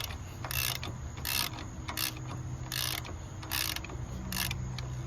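Hand ratchet wrench clicking in repeated short strokes, about one every three-quarters of a second, as a bolt is worked out of the engine.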